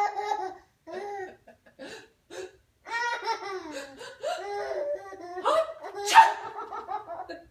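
A young child laughing in repeated fits of giggles and belly laughs, with a loud, sudden burst about six seconds in.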